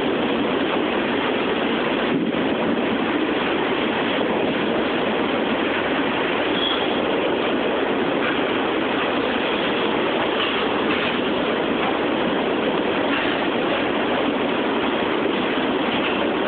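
CSX mixed freight train's cars, including tank cars, rolling steadily past on the track: a continuous, even noise of wheels on rail.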